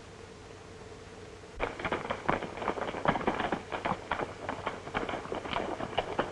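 Horses' hooves clip-clopping, several horses riding in. The hoofbeats start about a second and a half in, over the hiss and hum of an old film soundtrack.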